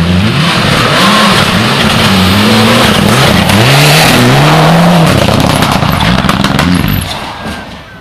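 Mitsubishi Lancer Evolution rally car's turbocharged four-cylinder engine at full effort through a hairpin, revving up and dropping back several times as it changes gear and lifts. It fades away over the last second or so.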